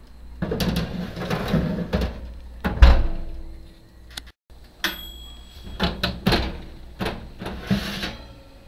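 Kitchen handling sounds at an ESCO oven: a metal baking tray clattering and scraping on the oven rack, the oven door shutting with a heavy thump about three seconds in, then clicks of a control knob being turned and more scraping as the tray is slid out near the end.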